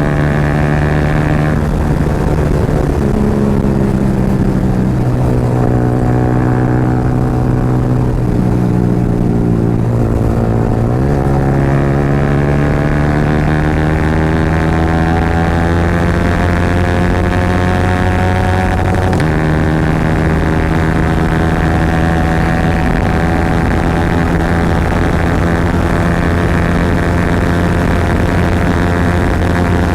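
Yamaha R15's single-cylinder engine running loud through an Akrapovic exhaust on the highway. Its note climbs steadily with speed, and the pitch dips and picks up again a few times as the rider changes gear.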